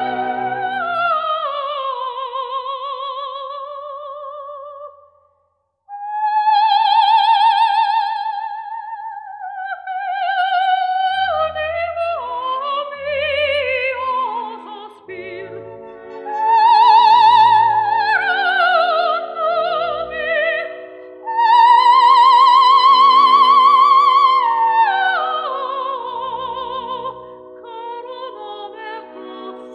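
Operatic singing with a wide vibrato over instrumental accompaniment. It breaks off to silence for about a second some five seconds in, then a new sung phrase begins.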